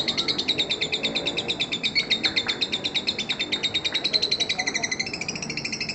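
Lovebird's long 'ngekek' chatter: high, very fast repeated notes, about ten a second, running on without a break and shifting slightly in pitch near the end.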